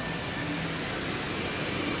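Steady rushing ambient noise of a large indoor shopping-centre atrium, with a fountain and ventilation blending into the hush and faint distant voices. There is a short faint high click about half a second in.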